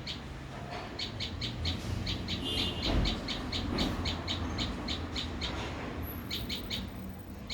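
A bird repeating a short, high chirp about four to five times a second, pausing briefly near the end, over a low rumble.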